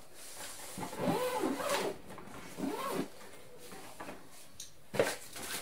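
Hands rubbing and handling the fabric lining and divider panel of an open hard-shell suitcase, with two squeaky rubbing sounds in the first half and a sharp knock about five seconds in.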